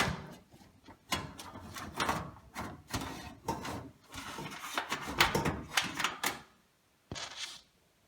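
Irregular clicks, rattles and scraping of metal and plastic parts being handled, as a hard drive and PC case drive-bay hardware are fitted by hand. They stop for a moment, then one short rattle comes near the end.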